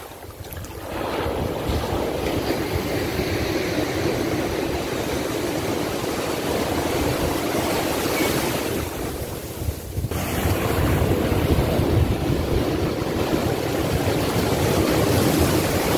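Surf breaking close at hand and washing up a sandy beach: a steady rush of churning water and foam.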